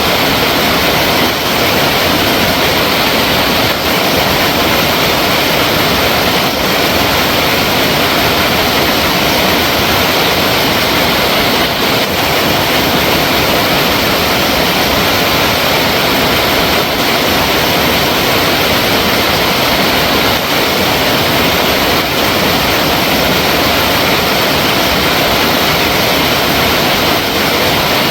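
Flowing water rushing steadily, a loud unbroken hiss with no change throughout.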